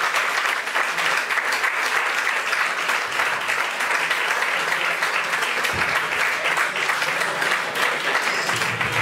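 Audience applauding: a steady, dense clapping of many hands that keeps on without a break.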